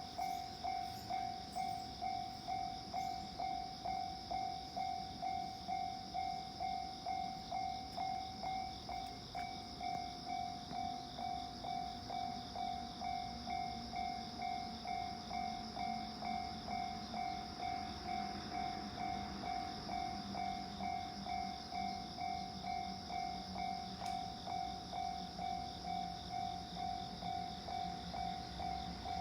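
Japanese railway level-crossing warning bell ringing, an electronic clang repeating about twice a second. A low rumble builds under it in the second half as a train approaches.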